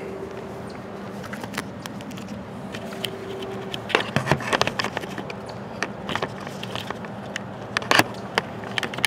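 Handling noise on a handheld camera: a run of clicks, knocks and rubbing against the microphone, loudest about four seconds in and again near eight seconds, over a steady low hum.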